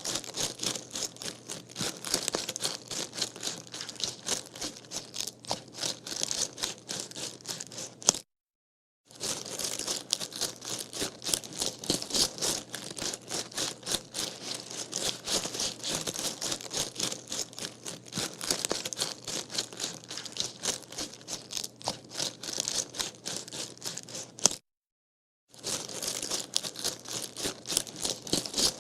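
Running footsteps crunching on gravel, a quick, unbroken run of crunches. It cuts out to silence twice for under a second, about a third of the way in and again near the end.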